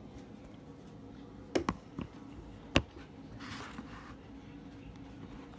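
Handling noise: a few sharp knocks and clicks about a second and a half in, the loudest near the three-second mark, then a short soft rustle.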